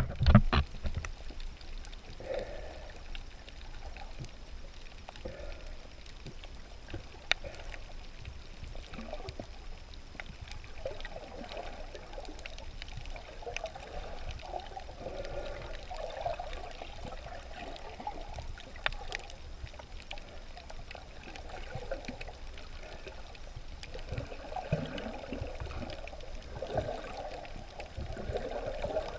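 Water noise picked up by a camera underwater: an uneven bubbling and sloshing that swells and fades, with scattered faint clicks. A brief louder burst comes at the very start.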